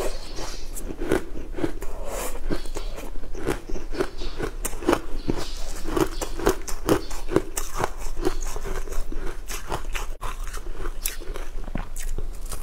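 A person biting and chewing a dry, crumbly green food close to a clip-on microphone: rhythmic chewing, a few bites a second, under dense crunching and crackling.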